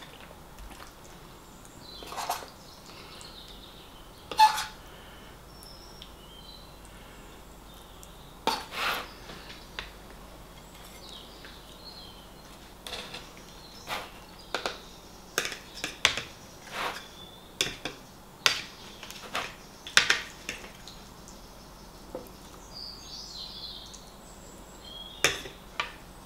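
Fork clinking and tapping against a plate in irregular sharp strikes, a few in the first half, then many close together for several seconds past the middle.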